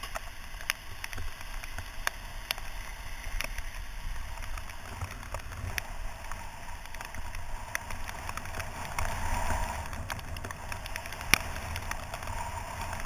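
Wind rumble and the hiss of wet road from a camera on a bicycle ridden in the rain, with scattered sharp ticks and one louder click about eleven seconds in.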